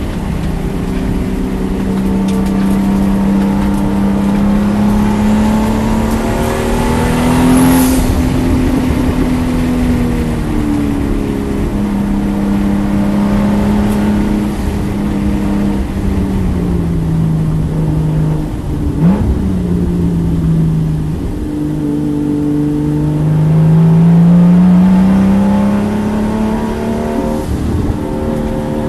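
Toyota Supra MKIV's straight-six engine pulling hard around a race track, heard from inside the cabin over tyre and wind noise. The engine note climbs and falls with the corners, dropping low near the middle with a brief sharp blip, then rising loudest as the car accelerates, with a gear change near the end.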